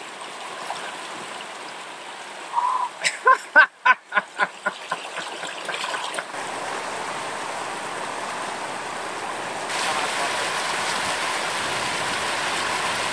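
Fast river water rushing over rocks, a steady hiss that grows louder about ten seconds in. About three seconds in comes a quick run of a dozen or so short pitched calls, getting closer together.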